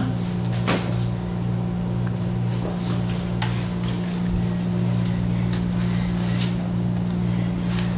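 A steady low machine hum, like a running household appliance or fan, with a few soft knocks and rustles of handling.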